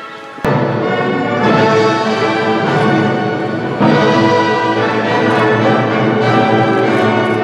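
Instrumental music with full sustained chords, cutting in abruptly about half a second in and running on loudly.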